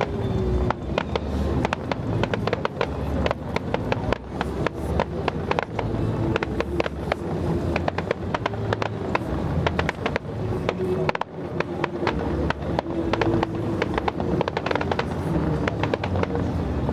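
Fireworks going off in a fast, irregular string of bangs and crackles, several a second without a break.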